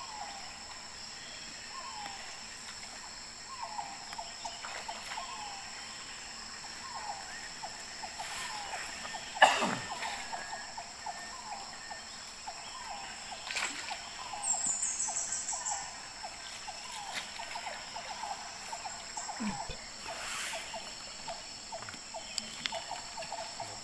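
Riverside jungle ambience: insects keep up a steady high-pitched drone while small animal calls run on in a quick train of short chirps, several a second. A few splashes from a person wading in the river stand out, the loudest about ten seconds in.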